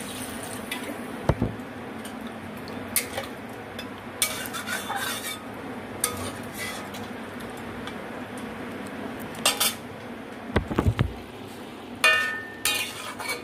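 Metal spatula scraping and clinking against a metal kadai as a watery curry of potatoes, pointed gourd and prawns is stirred: scattered short scrapes and knocks over a steady hiss.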